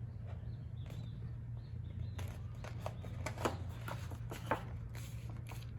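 Sheets of black cardstock being handled and pressed together by hand, giving soft rustles and light taps, with a few short squeaks near the middle. A low steady hum runs underneath.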